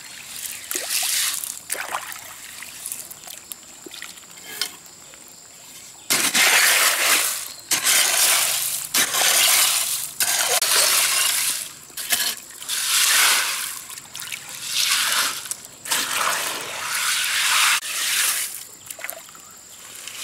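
Digging in wet stream gravel with a bamboo-handled blade and bare hands: pebbles grating and clinking, with water sloshing. A few scattered strokes at first, then from about six seconds in loud scrapes about a second long, repeating every second or two.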